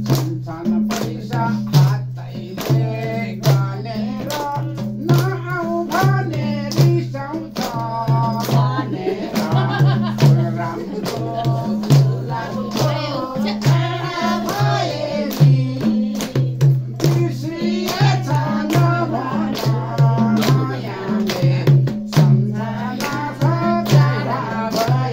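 Music: a singing voice over a steady drum beat and sustained low notes.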